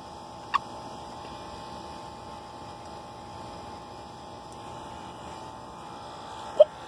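Steady electrical hum with a constant high tone. A brief sharp chirp about half a second in and a short loud squeak near the end stand out above it.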